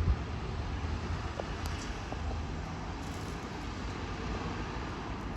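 Diesel engine of a rail replacement bus running steadily at low revs: a constant low rumble.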